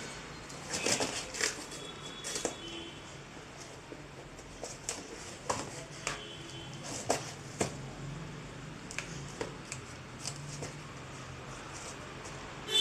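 A dog pawing and biting at a cardboard box, with irregular scraping, rustling and small tearing sounds of the cardboard.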